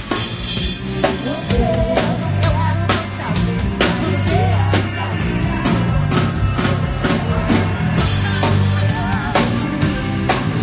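Pop band playing live through the venue's PA at a soundcheck: a steady drum-kit beat under bass and sung vocals.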